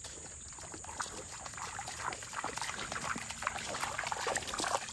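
Shallow creek water trickling and splashing, with many small irregular clicks that grow busier toward the end.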